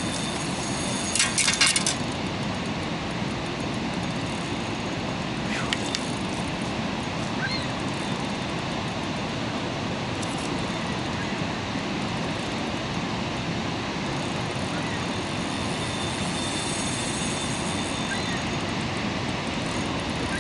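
Steady rushing outdoor background noise, with a brief burst of rapid clicks about a second in and single sharp clicks a few seconds later.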